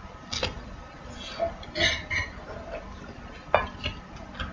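Cutlery clinking against a bowl or plate while eating: a few sharp clicks and light clatter, the loudest click about three and a half seconds in.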